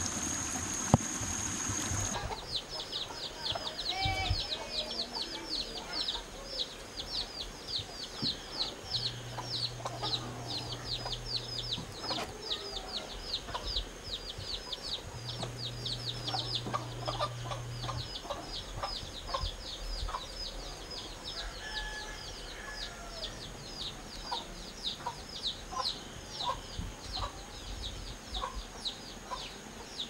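Running water for the first two seconds, then chicks peeping in a steady stream of quick, high falling chirps, about three or four a second, with a hen clucking lower beneath them.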